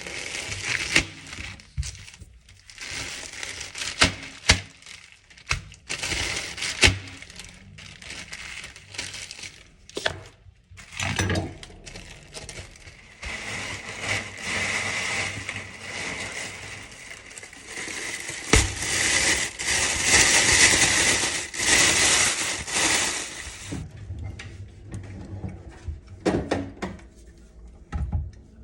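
Rustling, crinkling and clattering of food packaging and containers being handled, with sharp knocks throughout and a longer stretch of steady hiss about halfway through.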